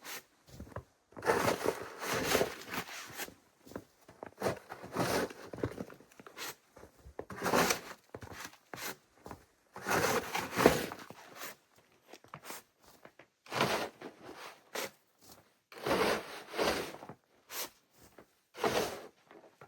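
Slow, uneven footsteps crunching through deep snow, one heavy step every second or two with short pauses between.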